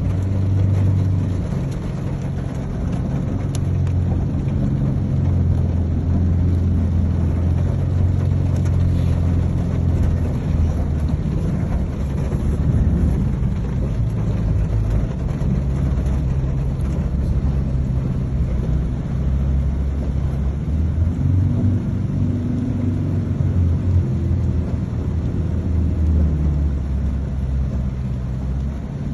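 A motor vehicle's engine running at low speed, a low steady hum that shifts in pitch now and then, heard from inside the vehicle.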